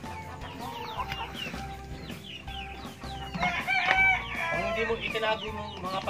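Chickens clucking around a feed bucket, with a rooster crowing loudly about three and a half seconds in.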